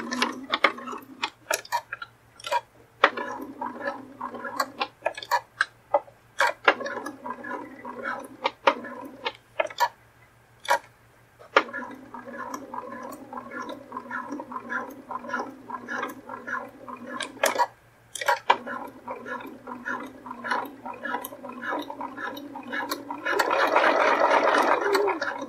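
Bernina B475QE electronic sewing machine stitching a zipper around a curve in about five short runs. It stops and starts with sharp clicks between the runs, and the last run near the end is the loudest.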